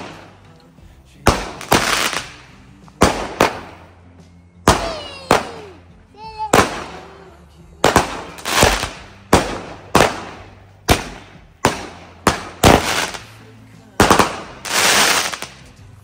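Fireworks going off in a rapid string of some twenty sharp bangs, one every half second to second, each with an echoing tail. A longer hissing, crackling burst lasting about a second comes near the end.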